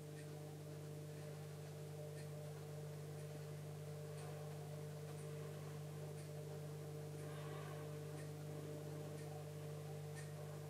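Steady low electrical hum of running aquarium equipment, with faint light ticks about once a second.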